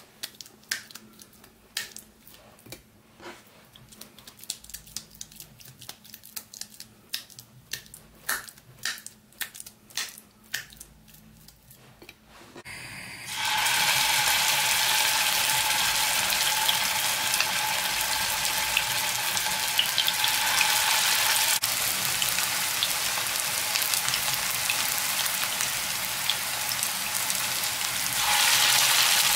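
Wet, irregular slaps and clicks of minced meat being pressed and rolled into balls by hand. About halfway through, a steady sizzle of meatballs frying in hot oil in a pan takes over, growing louder near the end as more meatballs go into the oil.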